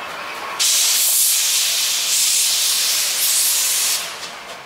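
JNR Class 8620 steam locomotive 58654 blowing off steam in a loud hiss as it pulls away, starting suddenly about half a second in and stopping about three and a half seconds later: steam venting from the cylinder drain cocks at the start of the run.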